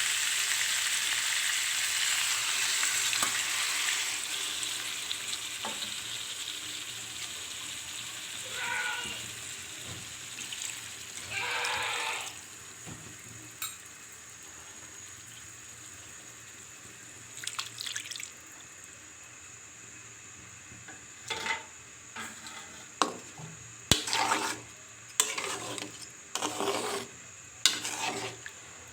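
Chicken sizzling in spices in a hot pan as water is added, the loud hiss dying away over the first several seconds. Then scattered scrapes and sharp clinks of a spoon stirring against the pot, several close together near the end.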